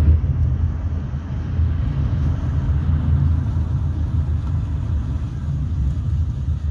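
Steady low rumble of a Maruti Suzuki Swift Dzire VDi diesel car's engine and tyres, heard from inside the cabin while driving slowly along a road.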